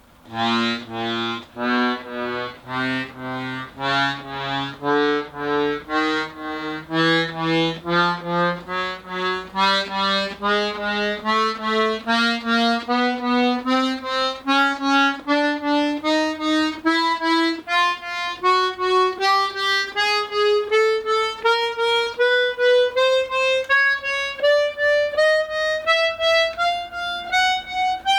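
A Tula 'Etude' bayan (button accordion) playing a slow rising chromatic scale, one reed note after another in even steps, climbing about three octaves. The keys are being tried one by one after the repair and tuning to check that each note sounds.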